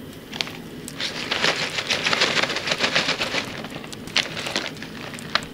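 Plastic bags of dried vegetables rustling and crackling as they are handled, with a dense run of crackles from about one to three and a half seconds in and a few sharp ticks after.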